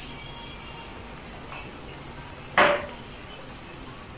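Minced meat simmering in a frying pan with a low, steady sizzle. A utensil clinks sharply against a pan once about two and a half seconds in, with a fainter clink a second earlier.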